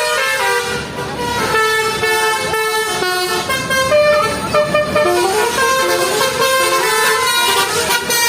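Indonesian bus 'telolet' basuri musical horn playing a tune, its notes stepping up and down one after another.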